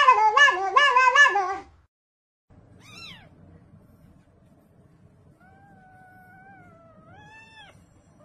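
A loud, warbling, tune-like call for the first second and a half. After a short break comes a small tabby kitten meowing, much more quietly: one short falling meow, then a long drawn-out meow that rises at its end.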